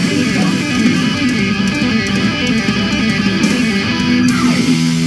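Rock band music with electric guitars, which settles on a held chord about four seconds in.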